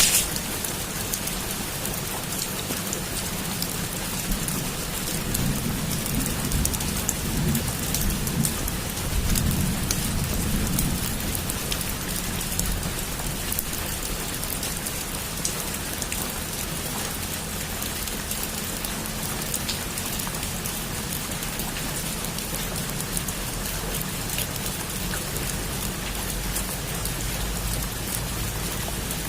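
Heavy rain falling steadily on a roof, with a low rumble of distant thunder swelling about five seconds in and fading out by about eleven seconds.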